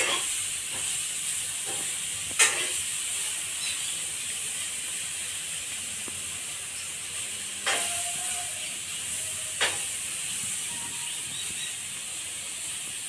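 A steady high-pitched hiss, broken by three sharp clicks spread through it.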